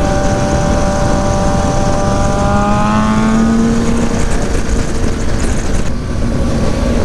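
Motorcycle engine accelerating at road speed, its note rising for a second or two and then dropping to a lower steady note, under heavy wind rush on the microphone.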